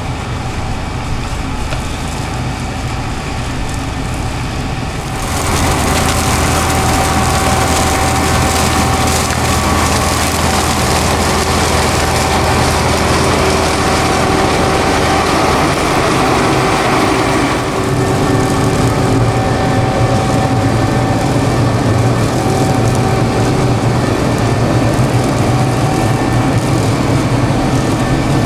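Dewulf RA4060 self-propelled potato harvester working: an engine runs steadily under a dense clatter from the machine's webs and elevator. The sound jumps louder about five seconds in and shifts again about two-thirds of the way through.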